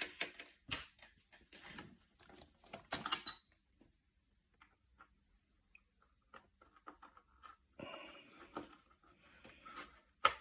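Hands working a PCIe power cable and its plastic connector into place inside a PC case: rustling, scraping and a series of light clicks and knocks. It pauses briefly in the middle, and there is a sharp click near the end.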